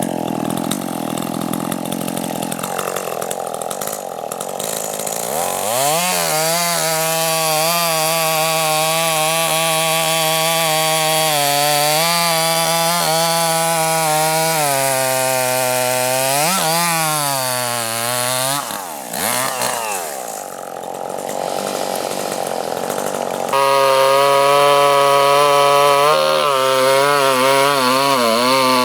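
Chainsaw engine revving up to full throttle and running at high speed, cutting through a log, its pitch dipping briefly twice under load. Near the end it jumps abruptly to a louder, steady full-throttle run.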